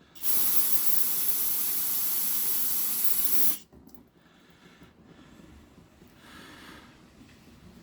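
Aerosol can of brake parts cleaner sprayed in one continuous hissing burst of about three and a half seconds, then cut off; it is washing spilled oil off the engine around a freshly fitted oil filter.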